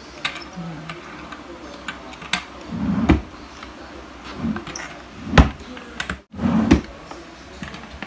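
Key turning in a newly fitted drawer lock: a series of small metal clicks with a few dull knocks of the drawer, the loudest about three and five and a half seconds in.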